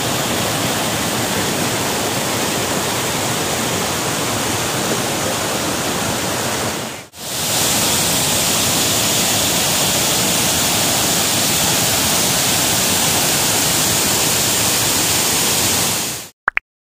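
Steady rushing of a waterfall, water pouring over and splashing on rock. It drops out for a moment about seven seconds in and comes back a little louder, then cuts off suddenly near the end.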